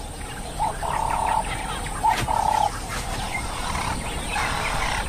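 Two similar calls from a wild animal, each held for about half a second, about a second and a half apart, with birds chirping faintly in the background.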